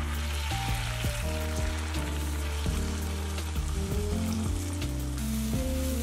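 Food frying in a pan, a steady sizzle with scattered small crackles, under background music.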